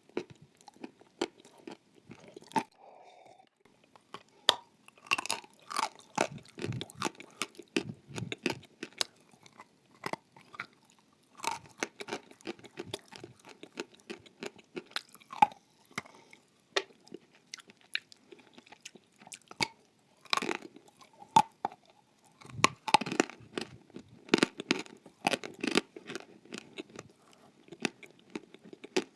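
Close-miked chewing of crunchy food: irregular sharp crunches and clicks, busier around five to eight seconds in and again from about twenty seconds in.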